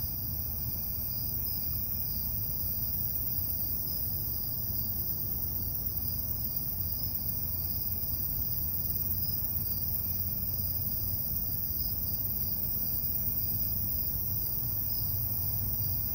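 Chorus of night insects, crickets and katydids, calling in steady high, faintly pulsing trills, over a steady low rumble.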